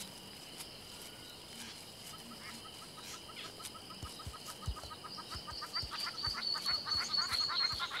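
Bush ambience: insects hold steady high tones while birds call, with short repeated chirps building from about two seconds in and a high rapid trill over the last few seconds. A few soft low thumps sound now and then.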